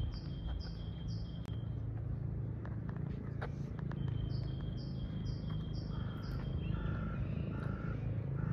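A songbird singing phrases of five or six quick repeated high notes, about two or three a second, with a pause of a couple of seconds between phrases, over a steady low outdoor rumble.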